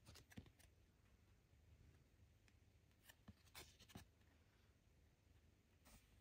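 Near silence, with a few faint rustles and light ticks of fingers handling and tilting a trading card, clustered near the start, around the middle and near the end.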